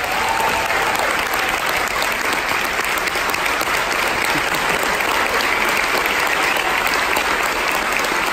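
Large audience applauding: many hands clapping together in a sustained, steady wave that swells up right at the start and then holds.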